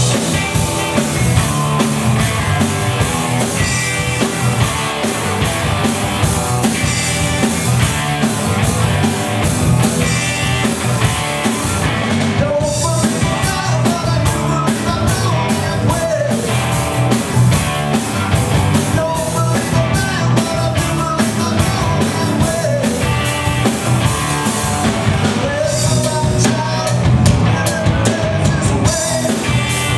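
Rock band playing live, with electric guitars and a drum kit keeping a steady beat and a man singing lead at the microphone.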